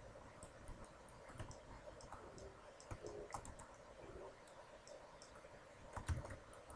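Faint, scattered clicks of a computer mouse and keyboard keys, a few slightly louder ones around the middle and near the end.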